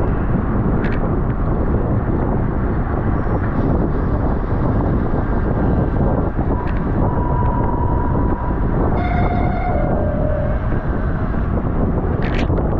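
Steady wind rush over the microphone of a camera on a racing bicycle moving at speed. A short steady tone sounds about halfway through, and a couple of sharp clicks come near the end.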